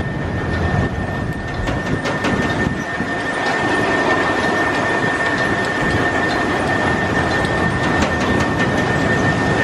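Intamin inverted roller coaster train running along its steel track: a steady rumble of wheels on the rails with light rattling clicks. It dips slightly about a second in, then builds again.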